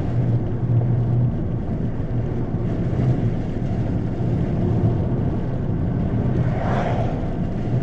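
Steady engine and road hum heard from inside a moving car, with a brief higher-pitched sound about seven seconds in.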